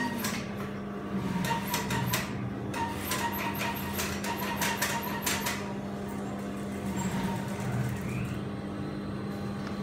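Steady electric motor hum of sewing machines in a sewing room. For the first five seconds or so there is a busy run of clicks and rustles from the garment being handled.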